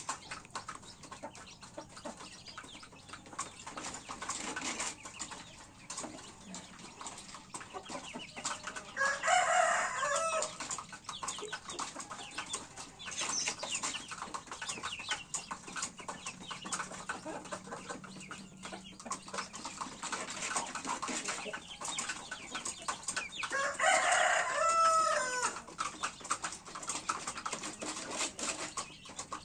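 A rooster crows twice, about nine seconds in and again about twenty-four seconds in, each crow lasting about a second and a half. Between the crows, chickens make softer calls and scratch and peck at the dirt floor with light ticking sounds.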